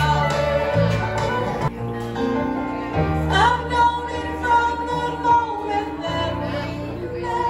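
A woman singing into a microphone over amplified instrumental accompaniment, with a low bass line that shifts note every second or two; about three seconds in her voice slides up and holds a long note.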